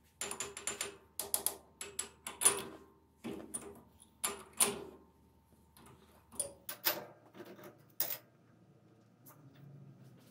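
Lathe four-way toolpost being worked by its clamping lever: a quick run of sharp metal clicks and clacks with a bright ring, thinning out to a few single clicks after about five seconds.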